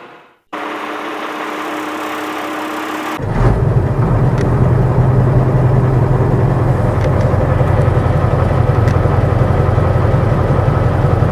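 Engine of a heavy vehicle running: first a quieter steady sound for about three seconds, then a louder low rumble that runs evenly and cuts off abruptly at the end.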